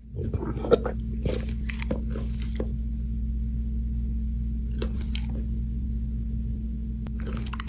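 Crunching, chewing sounds in a few spells, the first couple of seconds, again about five seconds in and near the end, over a steady low hum.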